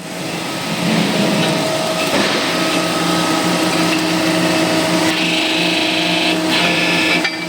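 Hydraulic track press running with a steady motor hum, with a brief dip about seven seconds in, while pressing excavator track links together.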